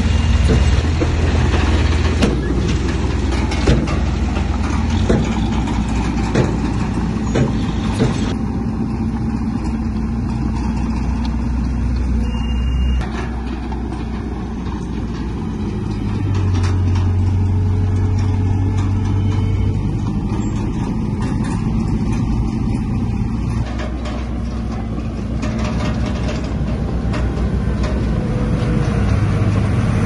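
Diesel engines of heavy earthmoving machinery running with a continuous low drone. Sharp knocks come about every second and a half during the first several seconds, and a stronger low steady tone comes in about halfway through and drops away several seconds later.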